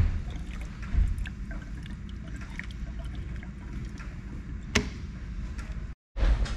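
Gasoline trickling from a plastic gas can into a carburettor float bowl, hand-priming the fuel system before a first start attempt. Two dull knocks come near the start and about a second in, and there is a sharp click near the end.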